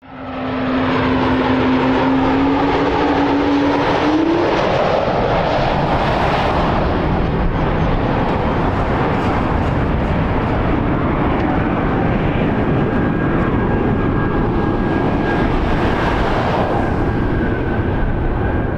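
Jet engines of a Boeing 737-700 airliner (CFM56-7B turbofans) running loud and steady as it lands, with a pitch that climbs about four seconds in and a thin high whine in the later part. The sound fades in at the start and cuts off at the end.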